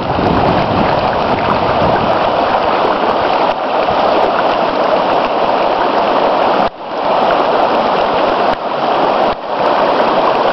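River rapids rushing in a steady wash of whitewater noise, dipping briefly a few times.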